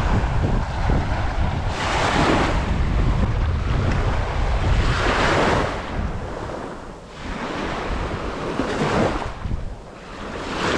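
Small waves washing up onto a sandy shore every few seconds, with wind rumbling low on the microphone.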